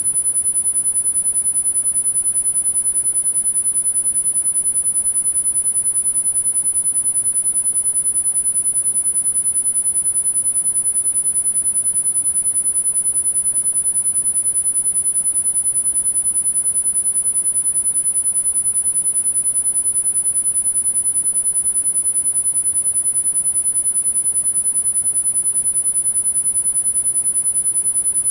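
Electronically generated tinnitus-masking sine tone: a single very high-pitched pure tone held steady without a break.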